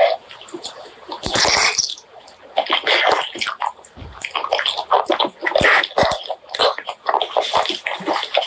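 Close-miked eating sounds of pork leg curry and rice: chewing and lip smacking, an irregular run of quick clicks and short noisy bursts.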